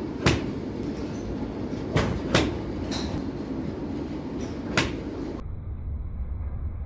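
Golf club striking balls on a driving-range mat: four sharp cracks, one just after the start, two close together about two seconds in, and one near five seconds, over a steady low rumble.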